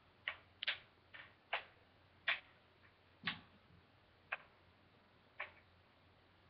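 Wooden kendama clacking as the ball is caught and knocks against the wooden cups: about eight short, sharp clacks at uneven intervals.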